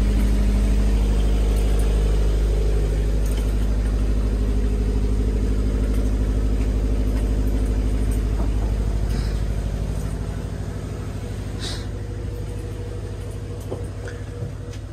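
Marine diesel engine running steadily in the boat's engine room, a low even hum that fades away after about ten seconds. A light click about twelve seconds in.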